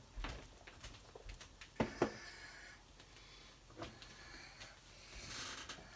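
A few faint knocks and clatters of kitchen things being handled, the loudest about two seconds in, with a soft hiss near the end.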